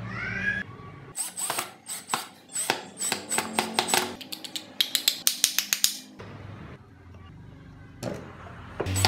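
Cordless drill driving screws into a carved wooden frame, in short runs, with a quick, even series of clicks about five seconds in and more clicking near the end.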